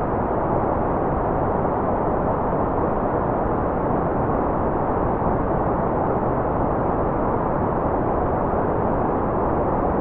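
Steady white noise: an even, unchanging rushing hiss with its treble cut off, so it sounds dull and muffled rather than bright.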